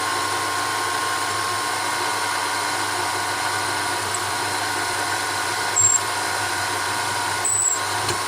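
BF25 milling machine's spindle running steadily with a drill bit feeding through a metal part. Two brief high squeals come from the cut, about six and seven and a half seconds in.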